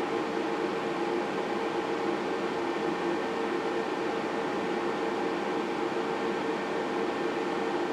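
Dyson bladeless blower-style fan heater running on high: a steady rush of air with a steady hum of several tones from its blower motor.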